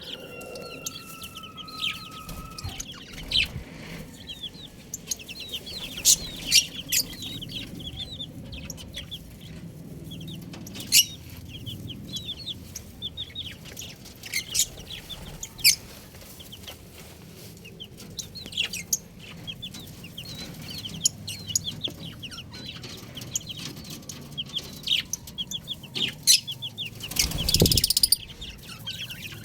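Baby chicks peeping: a continual stream of short, high, downward-slurred cheeps, with a longer falling call in the first two seconds. A loud noisy rustle comes near the end.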